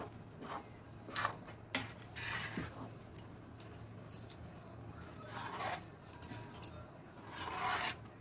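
A utensil stirring and scraping thick, thickening gram-flour (besan) batter around a kadhai. There are a few sharp clicks against the pan in the first two seconds, then longer scraping strokes, the longest about five and a half seconds in and near the end.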